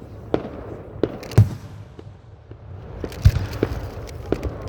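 Aerial fireworks shells bursting in the sky: about six sharp booms and pops, the two loudest about a second and a half in and about three seconds in.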